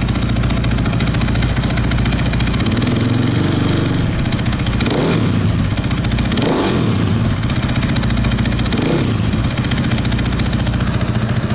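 KTM 500 EXC-F single-cylinder four-stroke engine idling through a newly fitted FMF exhaust, with several quick throttle blips that rise and fall in pitch, the biggest about six and a half seconds in.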